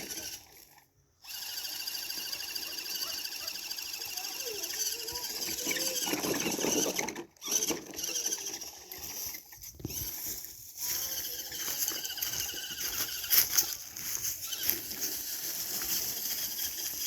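A Redcat Everest 10 RC crawler's small electric motor and gearbox whining as it drives, rising and falling with the throttle, cut off abruptly a few times.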